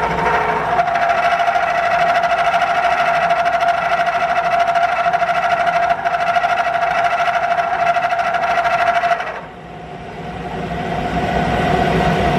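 End mill cutting metal on a milling machine and chattering, with a steady high-pitched ringing whine. About nine seconds in the cutting sound drops away, then the whine builds back up near the end.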